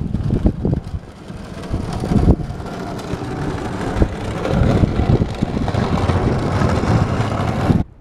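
Plough blade of a battery-powered homemade garden tractor scraping and pushing snow along a driveway, with wind buffeting the microphone in low thumps. The scraping grows louder as the tractor passes close, then cuts off suddenly near the end.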